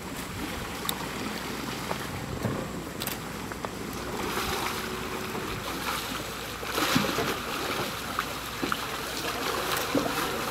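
Water splashing and sloshing around a wading Bornean pygmy elephant, over a steady low rumble, with louder splashing about seven seconds in.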